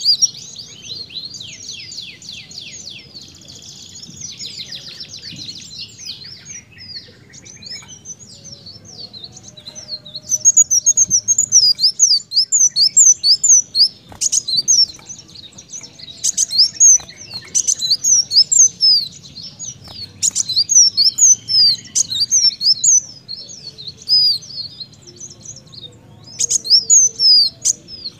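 Ruby-cheeked sunbird (kolibri daun) singing a fast, high twittering song in a canary-like style. The first several seconds are softer rapid trills; after a short pause, from about ten seconds in, come loud, dense runs of quick chirps.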